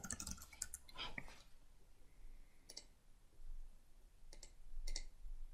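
A handful of faint, irregularly spaced computer mouse clicks.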